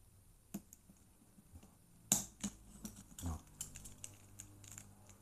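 Small metal clicks and taps of a door-lock cylinder and its opening tool being handled: a sharp click about two seconds in, then a run of lighter, irregular clicks.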